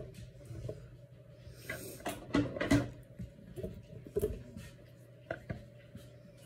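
Kielbasa slices dropped one by one through a stainless steel canning funnel into a glass mason jar of sauce: scattered soft taps and knocks, the two loudest a little past the middle.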